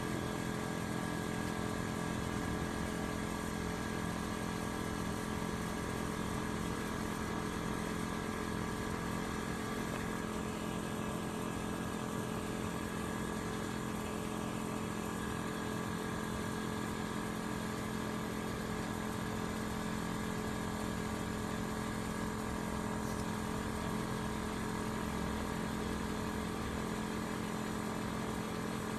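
Kleinn onboard air compressor running steadily without a break, pumping up a Jeep tire that is near 30 psi on its way to 35.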